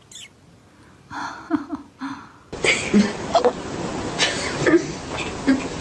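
Domestic cat hiccuping: a string of short, abrupt hiccups about half a second to a second apart. The owner puts the hiccups down to the cat eating its food too fast.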